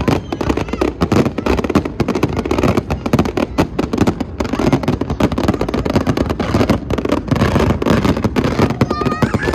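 Large aerial fireworks display: a dense, continuous barrage of bangs and crackling shells with hardly a gap between them.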